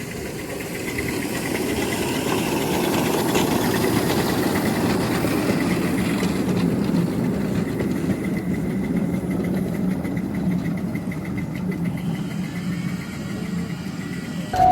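Engine of a ride-on mini train running steadily. It grows louder over the first few seconds as the train nears, then eases slightly near the end.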